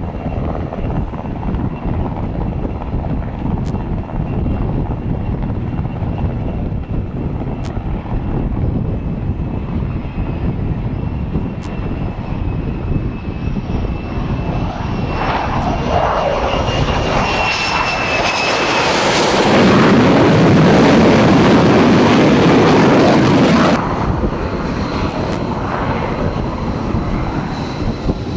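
F-35C's single turbofan jet engine on a carrier landing approach: a faint high whine over a steady rumble grows into a loud roar about two-thirds of the way through, which cuts off abruptly. The jet's engine then runs more quietly.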